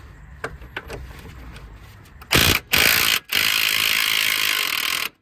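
Impact wrench with a long socket hammering on a tie rod end's ball-stud nut: two short bursts, then a longer run of nearly two seconds. A few light clicks come before it.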